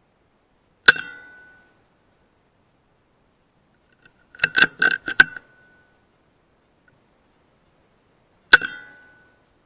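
Tuned Air Arms S200 PCP air rifle fired twice, once about a second in and again near the end. Each shot is a sharp crack with a short metallic ring. About midway there is a quick run of four or five metallic clicks as the bolt is worked to re-cock and load the next pellet.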